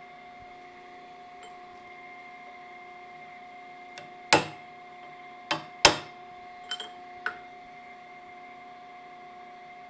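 Sharp metal-on-metal strikes against a steel camshaft held in a cam grinder, about five blows with a short ring after each, the loudest around four and six seconds in. This is the shaft being worked straight to remove journal runout. A steady machine hum runs underneath.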